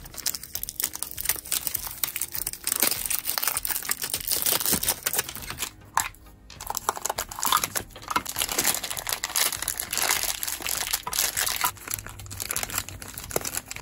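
Plastic wrapping crinkling and tearing by hand as it is peeled off a small cardboard blind box, then a plastic bag being opened. An irregular crackle with a short lull about six seconds in.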